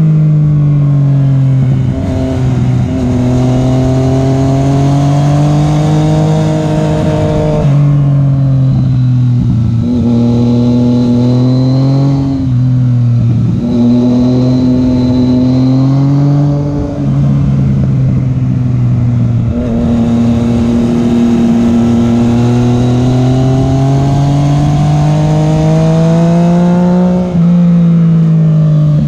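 Yamaha FZ-09's three-cylinder engine running under way, heard from on the bike. Its note rises slowly with the throttle and drops sharply about six times as the rider rolls off or changes gear.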